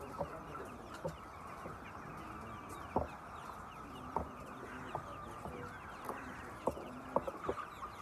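A large flock of white chickens clucking together in a steady murmur of overlapping calls, with a few sharp taps now and then from about three seconds in.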